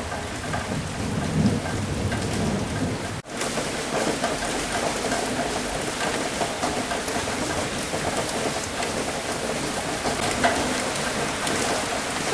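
Steady rain falling, with a low rumble of thunder in the first couple of seconds. The sound cuts out for an instant about three seconds in, then the rain carries on.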